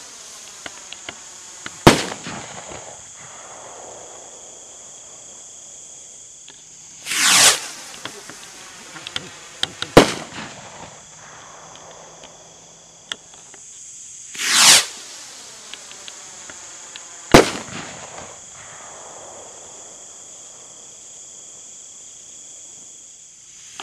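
Imperial Dragon Oriental Aviators firework rockets launching and bursting in turn. Each lifts off with a falling whoosh, then bursts with a sharp bang about two and a half seconds later, followed by a few small crackles. There are three bangs in all, and another rocket whooshes up right at the end.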